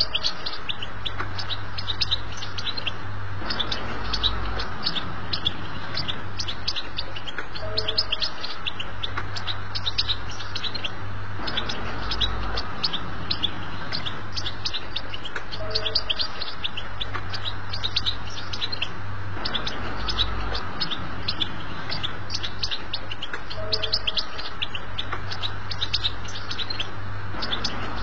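European goldfinch singing a fast, continuous twittering song of high chirps, the 'batbata' song type used to tutor young goldfinches. The recording loops about every eight seconds over a steady low hum.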